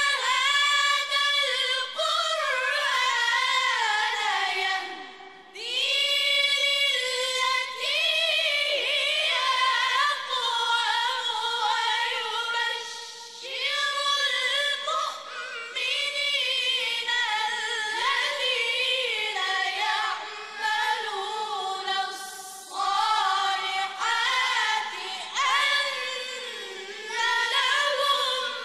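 A group of boys chanting Quranic recitation together, unaccompanied, in long ornamented phrases that slide up and down in pitch. Several short breaks fall between phrases.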